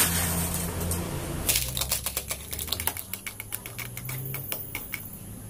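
Plastic lid being pressed and snapped onto a plastic cup of iced tea: a quick run of crisp clicks from about a second and a half in until near the end, over a faint low hum.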